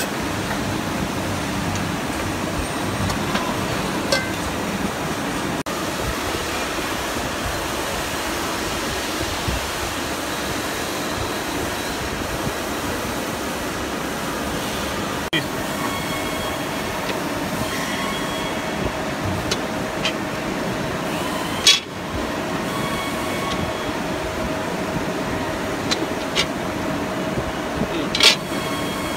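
66-ton CNC press brake running with a steady mechanical hum and hiss while aluminium checker-plate profiles are bent, with a steady tone joining about halfway through. A few sharp metal clanks from the parts and tooling, the loudest about three-quarters through and near the end.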